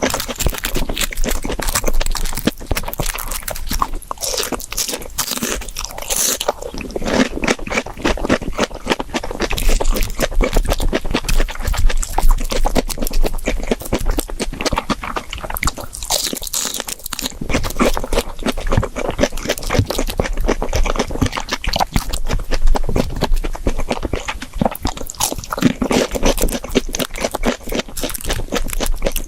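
Close-miked crunching and chewing of crispy deep-fried breaded pork cutlet (tonkatsu), a dense run of crackling bites and chews.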